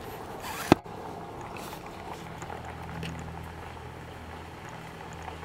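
A vehicle engine idling with a steady low hum, setting in about two seconds in, under faint scattered ticks. A single sharp knock comes just under a second in.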